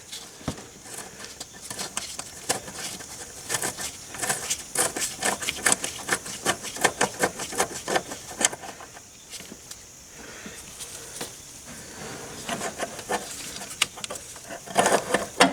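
Socket ratchet clicking in quick runs as bolts are backed out, with pauses between runs.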